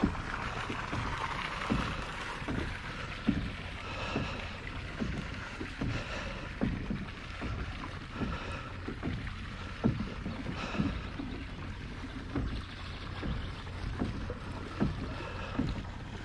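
Pedal drive of a Hobie Compass kayak being pedaled, a low thump with each stroke, a little faster than one a second.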